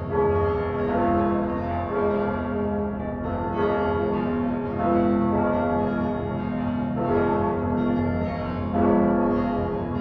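Church bells ringing, several bells struck in turn roughly once a second, slightly unevenly, each note ringing on and overlapping the next.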